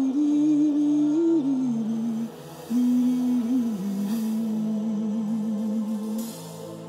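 A man humming a slow, wordless melody into a microphone over soft, sustained background music. There are two long phrases with a short break between them. The second phrase ends in a wavering held note that stops about six seconds in, leaving the music.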